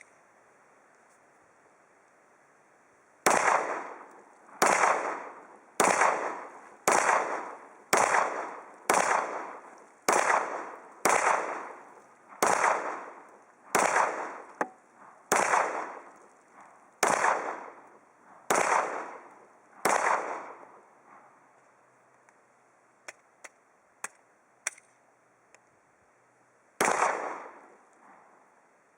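Glock 19 9mm pistol firing a slow string of about sixteen shots, roughly one a second, each with a ringing echo tail. After a pause with a few faint clicks, it fires one more shot near the end.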